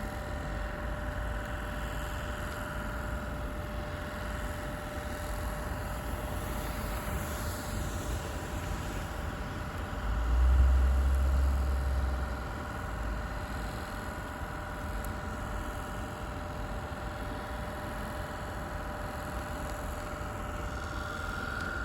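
Steady rumble of bridge traffic under a snowstorm's wind, with a louder low gust buffeting the microphone about halfway through.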